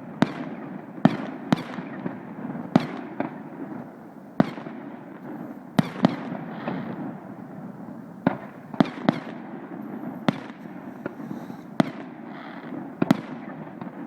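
Fireworks display: shells bursting in sharp bangs at irregular intervals, about one a second, over a continuous crackle.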